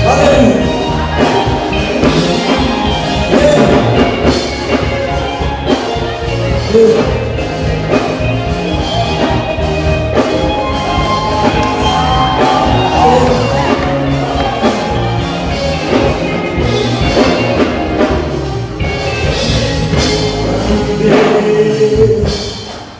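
Choir singing through microphones with live band accompaniment, drums keeping a steady beat under the voices.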